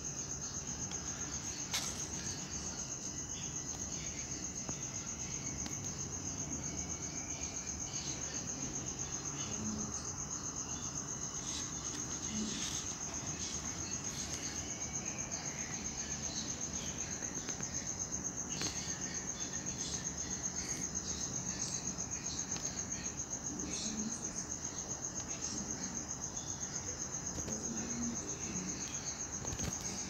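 An insect's high-pitched trill, steady and finely pulsed, holding one pitch, with a single sharp tap about two seconds in.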